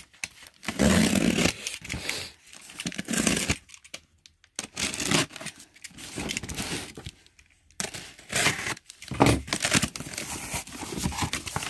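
Utility knife slitting the packing tape on a cardboard carton in a series of short scraping cuts, then the box flaps pulled open with tape tearing and cardboard crinkling.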